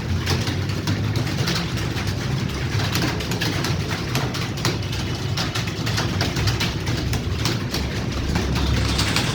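Many computer keyboards clattering with rapid, irregular keystrokes as several people type at once, over a steady low hum.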